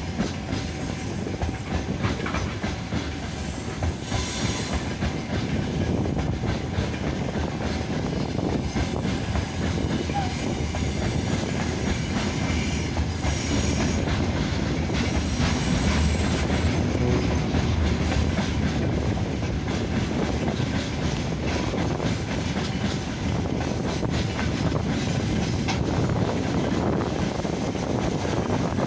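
Freight train rolling past steadily, its wagons' wheels clattering over the rail joints.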